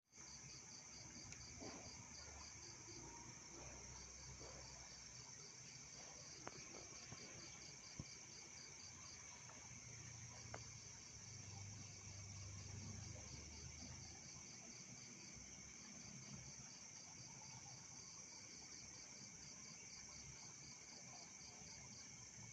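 Night insects: a faint, steady high-pitched insect drone, with crickets chirping in quick even trains that stop and start. A few faint clicks sound now and then.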